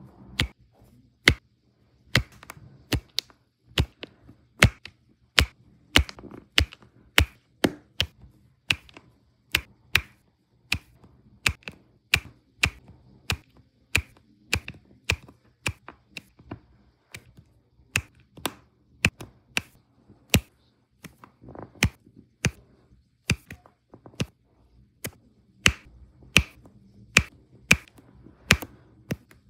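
A plastic diamond-painting drill pen clicking as it presses faceted resin drills one at a time onto the sticky canvas: sharp, short clicks, about two a second and unevenly spaced.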